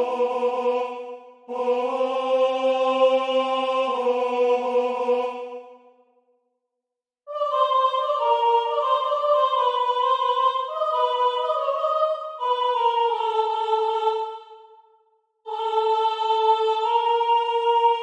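Unaccompanied vocal music from a three-part vocal score: sustained sung notes with no clear words. A single low voice line comes first and stops about six seconds in. After a pause of about a second, two voice lines overlap. A higher line comes in near the end.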